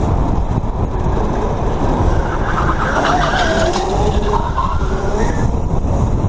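Electric drift kart sliding on asphalt: tyres squealing with a wavering pitch over a steady rumble of wind and road noise.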